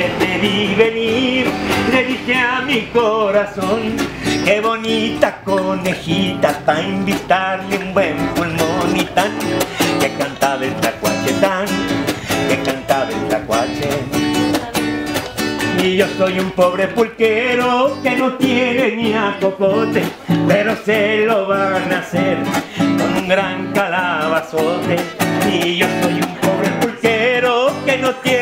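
Acoustic guitar strummed in a steady, lively rhythm, with a voice singing over it.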